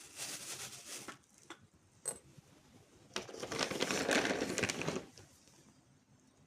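Two bouts of dry rustling, scratching noise: a short one at the start and a longer, louder one about three seconds in.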